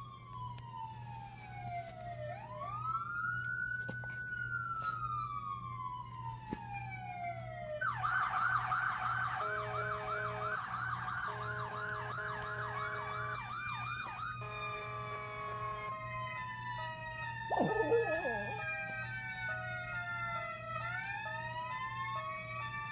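Emergency vehicle sirens: a slow rising and falling wail, then a fast yelp about eight seconds in with a two-note hi-lo tone alongside, then several wails overlapping. A dog howls briefly about three-quarters of the way through, over a steady low hum.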